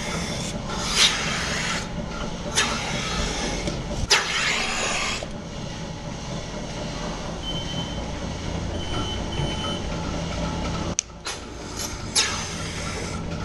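Milking-parlour machinery: a steady low hum from the milking vacuum system, broken by several short bursts of hissing air as teat cups are handled and put on cows' teats.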